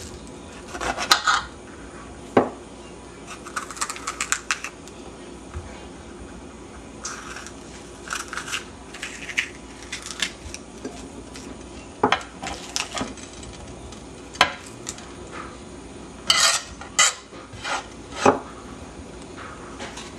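Kitchen knife cutting and hollowing out squash, eggplant and peppers on a plastic cutting board. The blade makes irregular sharp clicks and short scrapes against the board and the vegetables.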